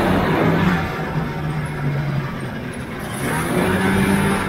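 Polaris TX340 snowmobile's two-stroke engine running under throttle. Its pitch drops about a second in, holds, then rises again about three seconds in as it speeds up.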